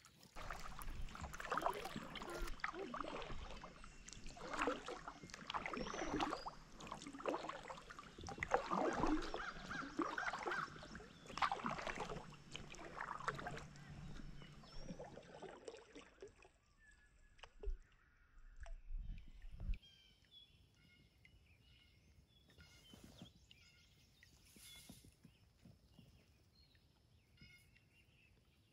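Double-bladed kayak paddle dipping and splashing in lake water beside an inflatable packraft, in irregular strokes about once a second, then fading to quiet lapping about halfway through.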